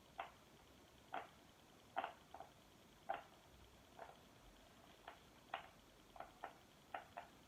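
Bubbles of a silicone pop-it fidget toy being pressed in one after another, each giving a short, faint pop; the pops come about once a second at first, then quicker and more irregular near the end.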